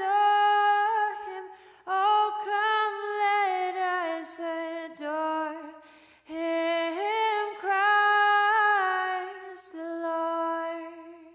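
A woman singing solo and unaccompanied in slow sung phrases, with short breaths between them; the last note fades away near the end.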